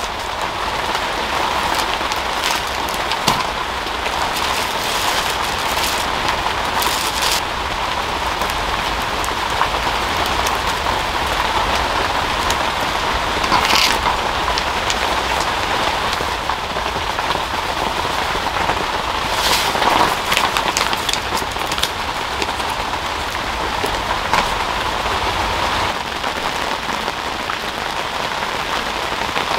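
Steady heavy rain falling on a camping shelter's fabric roof, heard from inside. A few brief rustles of paper are heard, the clearest about 14 and 20 seconds in, as a paper drip-coffee filter is handled.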